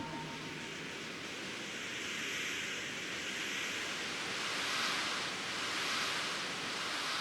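Steady rushing noise of wind and water, swelling and easing gently every second or so.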